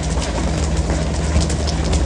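Fishing boat's engine running with a steady low drone, under a wash of water and scattered short clicks and knocks.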